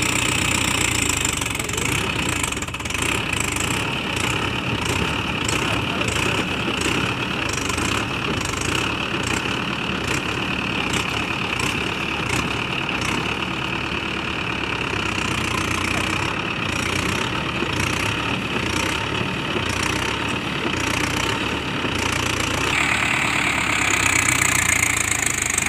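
Tractor diesel engine running steadily, with a regular pulsing about twice a second through most of the stretch.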